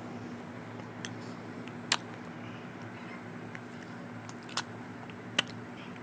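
Four short, sharp taps, the loudest about two seconds in and again near the end, over a steady low hum.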